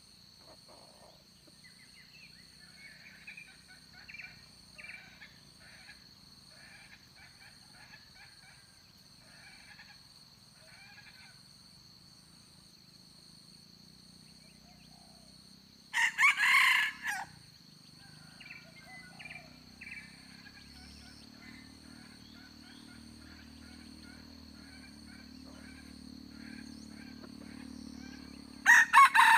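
Red junglefowl rooster crowing twice, once about halfway through and again near the end, each a short crow of about a second.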